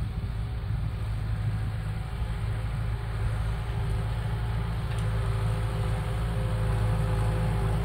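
Kubota M7060 tractor's four-cylinder diesel engine running steadily under load, growing louder as the tractor approaches; a higher steady tone joins the engine about halfway through.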